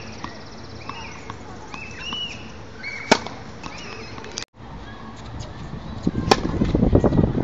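Two sharp cracks of a tennis racket's strings striking the ball on the serve, about three seconds apart. The second is followed by a low, rustling noise that grows for about a second.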